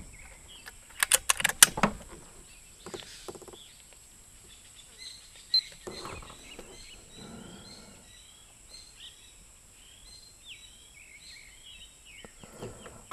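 A quick run of sharp clicks and knocks about a second in, from handling the scoped air rifle at the car window. After that, small birds chirp over and over in short high calls against quiet outdoor background.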